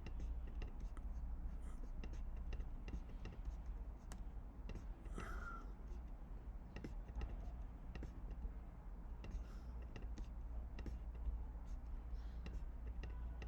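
Faint, scattered clicks of a computer mouse and keyboard over a low steady hum, irregularly spaced.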